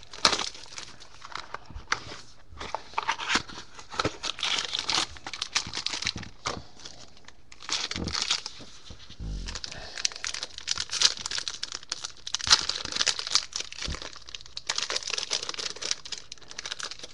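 A trading-card mini box being opened by hand: its wrapping torn and crinkled, with irregular crackling, clicks and a few dull knocks as the box and cards are handled.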